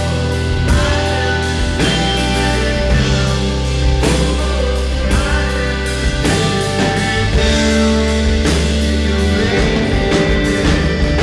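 Live rock band playing through a venue PA, with drum kit, bass and guitars, in an instrumental passage without singing. Drum hits fall at a steady beat under held bass notes and chords.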